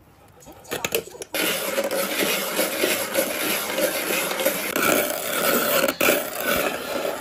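Hand-cranked ice shaver grinding ice into shaved ice: a few clicks, then from a little over a second in a steady, dense grinding scrape as the crank is turned.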